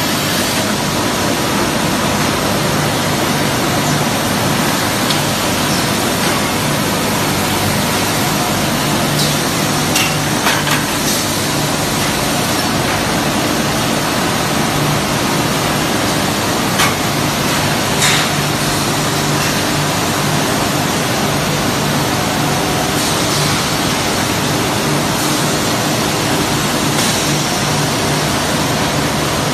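Stainless steel tube mills running: a loud, steady mechanical din over a low hum, with a few sharp metallic knocks midway.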